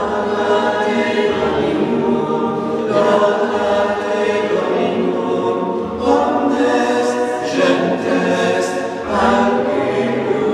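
A mixed choir of monks and nuns singing a chant together in unison phrases, each phrase a few seconds long, with church bells ringing behind the singing.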